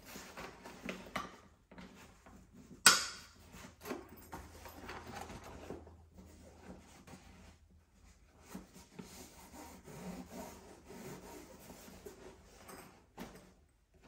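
Hands rubbing and handling gift-wrapping materials in soft, irregular strokes, with one sharp knock about three seconds in and a few lighter taps later.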